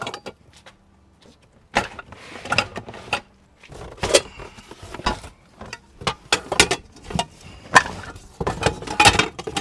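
Metal pots and pans knocking and clattering as they are handled and set into a cardboard box, with plastic bin and cardboard handling noise. After a short quiet start, a steady run of clanks and knocks follows.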